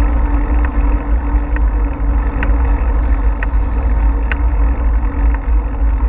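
Wind rushing and buffeting over a bicycle-mounted action camera's microphone while riding, with tyre noise on the paved path and a faint tick about once a second.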